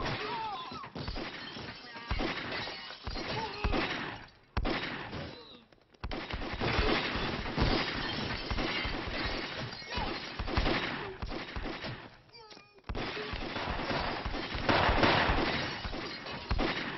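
Film shootout soundtrack: repeated pistol shots with glass and crockery smashing, amid shouting.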